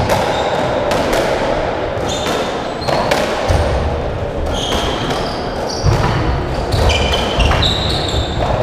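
Racketball rally on a squash court: irregular sharp cracks of the ball off rackets and walls, echoing in the court, with short high squeaks of court shoes on the wooden floor between them.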